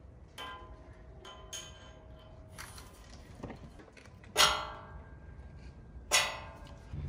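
Metal parts knocking together or being set down, five ringing clanks spread over several seconds, the two loudest near the middle and near the end.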